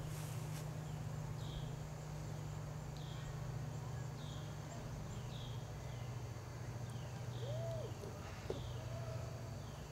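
Short, high, falling chirps repeating roughly once a second from a small animal, over a steady low hum.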